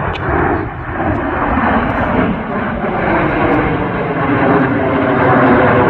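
BAE Hawk T1 jet trainers flying past in formation, the noise of their turbofan engines building steadily louder.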